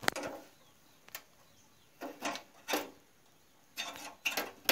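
Scattered metallic clicks and scrapes of hand tools against the fittings of a stainless steel gas stove burner as it is being unscrewed, a few at a time with short pauses between.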